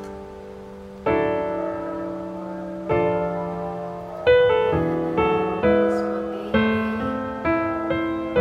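Background piano music: notes and chords struck one after another, each left to ring and fade, coming more often in the second half.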